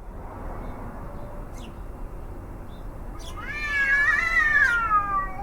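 A cat howling: after a few seconds of background noise, one long loud yowl wavers up and then slides down in pitch near the end.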